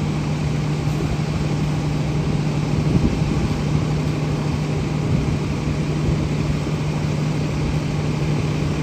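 Fire engine's engine running steadily, probably driving its water pump, with a constant steady hum.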